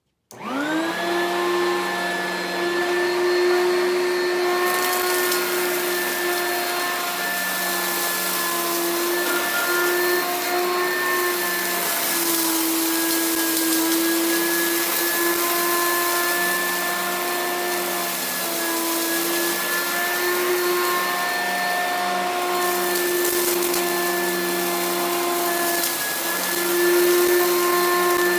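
Upright vacuum cleaner switched on: its motor spins up to speed in under a second, then runs with a steady whine of several tones over a rushing hiss as it is pushed over carpet sucking up clumps of fluff, the pitch dipping slightly now and then as the load changes.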